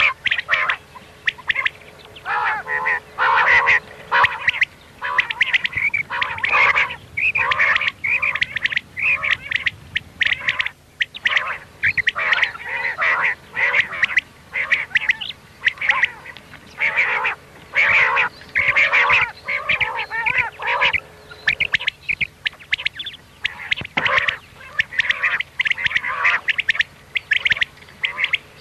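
Recorded common quail calls used as a hunting lure: many short calls in quick succession, overlapping, with only brief pauses between them.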